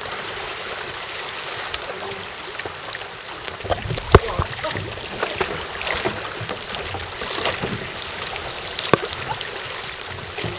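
Outrigger canoe (va'a) under paddle: a steady rush of water along the hull and wind, with the splashes of paddle strokes and many small sharp clicks. A loud knock comes about four seconds in and another near nine seconds in.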